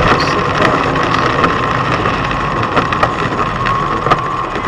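A car driving on a winter road, a steady running noise with a constant hum, overlaid by irregular sharp clicks and cracks.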